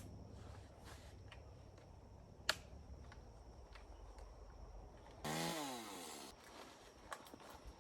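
Echo CS-310 two-stroke chainsaw running low at idle, with a sharp knock about two and a half seconds in. Near the end it gives a short loud rev whose pitch falls away over about a second as the engine winds down, and the low running sound stops.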